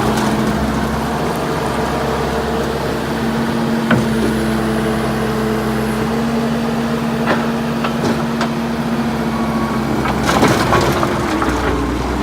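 2011 C190 skid steer's diesel engine running steadily under work, with sharp knocks and a burst of cracking and splintering, most of it about ten seconds in.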